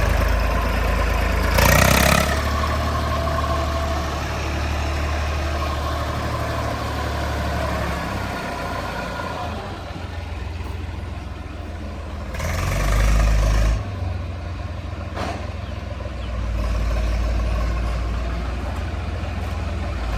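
Heavy diesel engine of farm or earthmoving machinery running steadily, with a louder surge twice, about two seconds in and again about two-thirds of the way through.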